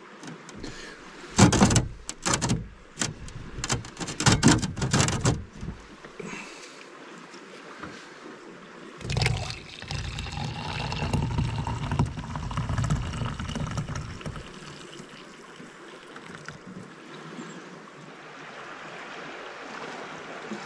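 A string of sharp knocks and clatter for about four seconds as a Jetboil cooking cup with its coffee-press lid is handled. This is followed, from about nine seconds in, by coffee poured from the cup into an insulated mug: a trickling, splashing pour lasting several seconds.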